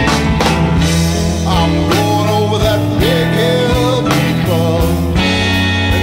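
Background rock music with a steady drum beat and singing.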